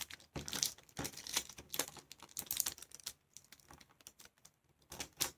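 Thin kite paper being folded and creased by hand on a wooden tabletop: faint, irregular light crinkles and taps as the fingers press the folds flat, pausing about three seconds in, then a few more taps near the end.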